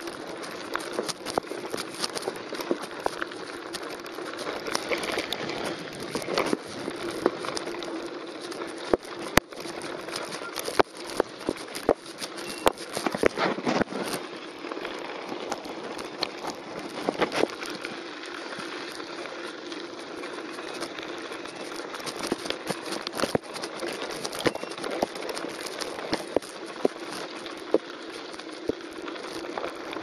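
Mountain bike rolling down a gravel creek bed: tyres crunching over loose stones and the bike rattling over bumps, a constant crackle of small clicks and knocks that is busiest between about 9 and 14 seconds in.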